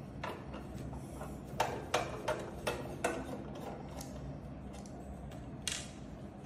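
Hand screwdriver backing a screw out of a 500g sample coffee roaster's side panel: a run of small sharp metallic clicks, thickest two to three seconds in, with a short scrape near the end as the screw comes free.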